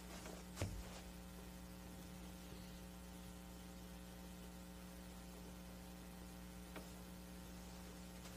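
Steady electrical mains hum with a faint hiss beneath it, and one soft knock about half a second in.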